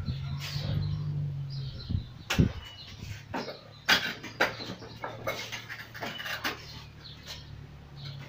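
Forearms and hands striking the wooden arms of a Wing Chun wooden dummy (mook yan jong): a run of irregular knocks and clacks, the sharpest about two and a half and four seconds in.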